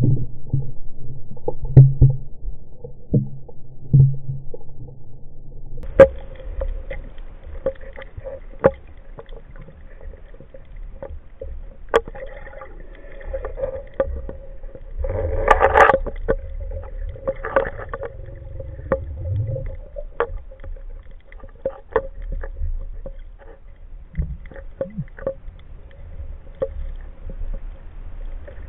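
Underwater sound from a camera mounted on a speargun: a low water rumble with scattered sharp clicks and knocks and a faint steady hum, and a louder noisy rush about halfway through.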